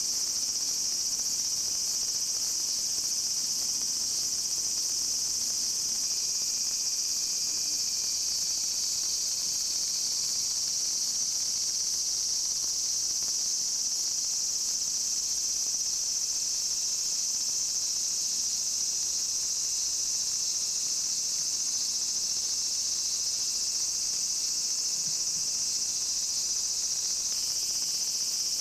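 Kaempfer cicadas (niiniizemi) singing in an unbroken, steady high-pitched drone.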